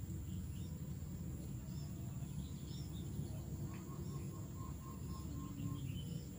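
Outdoor ambience of insects and birds: a steady high insect drone, scattered short bird chirps, and a run of short, evenly spaced notes about four seconds in, all over a low rumble.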